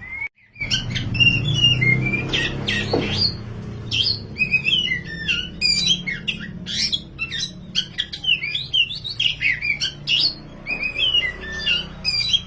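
Oriental magpie-robin (kacer, black 'wulung' form) singing nonstop: a fast, continuous run of varied chattering and whistled phrases. A steady low hum lies underneath, and the sound drops out briefly just after the start.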